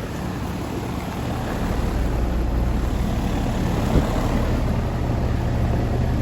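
Outdoor heat pump or air-conditioning condensing unit running: a steady compressor hum under the rush of the condenser fan, growing a little louder about two seconds in, with a light click about four seconds in.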